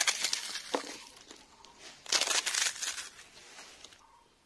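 Crisp fried papad crunching, in a burst of crackly crunches at the start and another about two seconds in.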